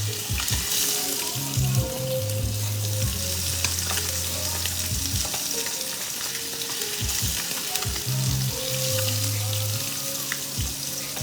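Fish and potatoes frying in hot oil on high heat, a steady sizzle. Low held humming notes underneath shift in pitch every second or two.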